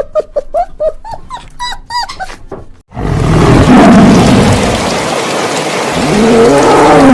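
A quick run of short chirping calls, several a second, then a sudden cut to a loud, harsh animal roar of about four seconds whose pitch rises and then falls near the end.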